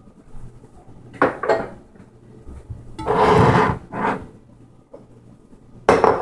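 Handling noise close to the microphone as things are picked up and set down: a few sharp knocks and clatters, with a longer rustling scrape in the middle.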